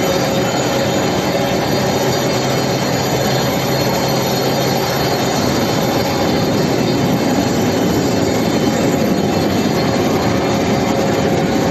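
Steady industrial machinery noise with a sustained mid-pitched hum; a lower hum drops out about seven seconds in.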